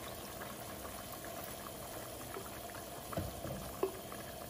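A pot of beef in broth simmering, a steady bubbling with small pops, as thick tomato sauce is poured in from a jar. Two brief soft knocks a little past three seconds in.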